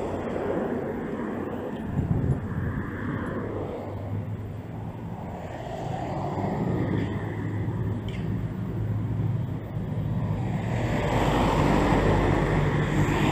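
Road traffic noise heard from a bicycle moving along a city street. Near the end a box truck's engine hum grows louder as it passes close alongside.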